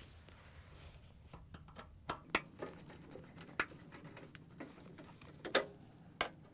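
Scattered light clicks and taps from a Phillips screwdriver and a sheet-metal refrigerator access cover as its screws are taken out and the cover is lifted away. The clicks are faint and irregular, a few sharper ones about two seconds in and again past the middle.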